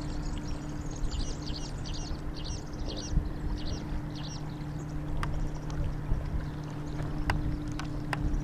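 Steady low rumble with a constant hum, like a distant engine. Over it, high bird-like chirps repeat quickly for the first half, and a few faint clicks come near the end.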